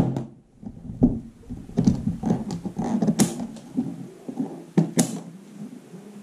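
An aluminium-framed carry case being handled and unlatched: knocks and rubbing against the case, and two sharp metal clicks from its snap catches, about three and five seconds in, before the lid is lifted open.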